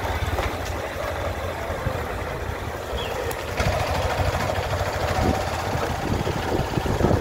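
Engine and road noise from a vehicle driving slowly, a steady low rumble, with a faint steady whine that comes in about halfway through.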